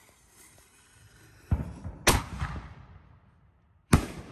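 5-inch canister firework shell bursting overhead: a loud boom about a second and a half in, a second sharp bang just after it, and another sharp bang near the end.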